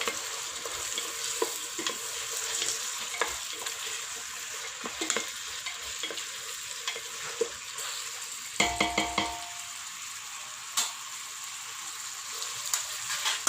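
Onion and tomato masala sizzling in hot oil in a pan while being stirred, with scattered scrapes and clicks of the spoon. About nine seconds in comes a short run of ringing metallic taps, the spoon knocking on the pan.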